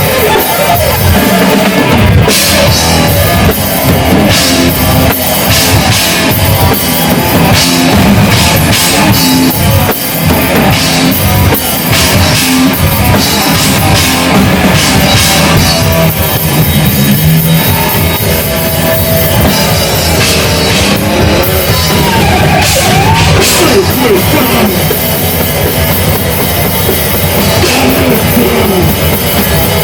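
Metal band playing live, driven by fast, heavy drumming with bass drum under a loud, dense wall of sound. A few sliding high notes come in about two-thirds of the way through.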